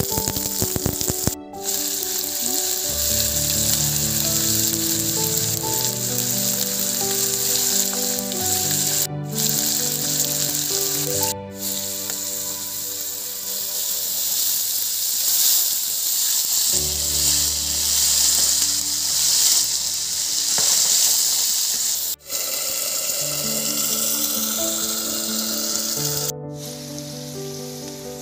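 Diced potatoes frying in oil in a wok, a steady sizzle, under background music with held notes and a bass line. The sound drops out for an instant a few times.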